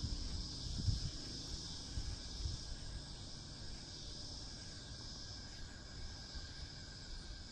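Steady high-pitched insect chorus, like crickets or cicadas trilling. Low bumps and rubbing sound over it in the first few seconds, then fade.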